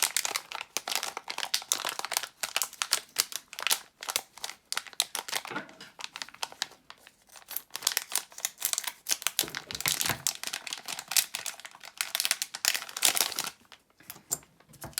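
Packaging being opened and handled, crinkling and crackling continuously with a few short lulls.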